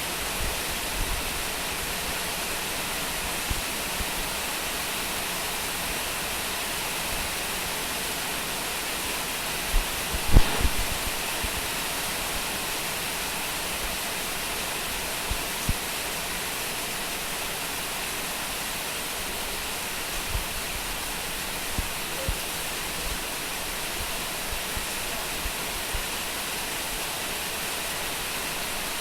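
Steady heavy rain falling, an even hiss, with scattered short low thumps, the loudest a small cluster about ten seconds in.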